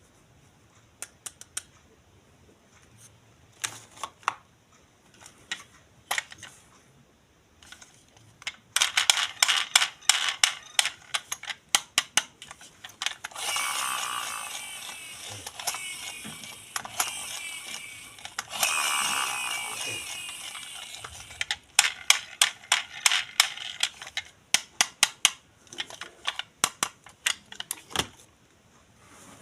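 Plastic toy mechanism clicking and ratcheting, with two stretches of steady whirring ratchet, one about four seconds long and one about two seconds long, between runs of sharp clicks.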